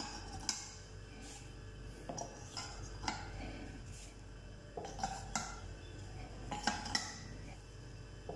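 Metal tube buckets clinking and knocking as they are dropped one by one into the sockets of a benchtop laboratory centrifuge's rotor: several short metallic clinks at irregular intervals.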